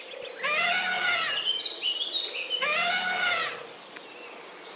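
An animal call sound effect played twice, each call lasting just under a second, over a steady background of birds and insects.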